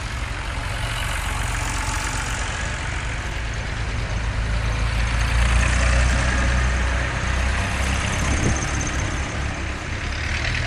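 Vintage tractors driving slowly past one after another, their engines running at a steady low chug. The sound swells to its loudest about halfway through as one tractor passes close, then eases off.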